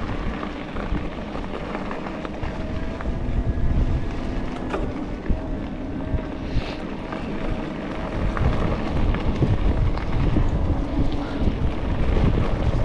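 Wind buffeting the microphone of a camera carried by a mountain biker on the move, with a low rumble from the tyres on the trail and a few sharp clicks. The buffeting grows louder in the second half.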